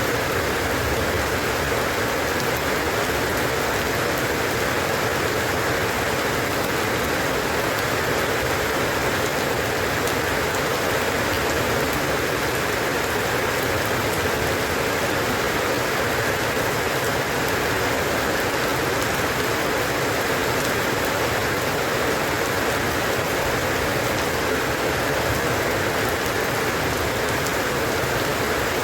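Steady rain falling, an even patter with no breaks or changes in strength.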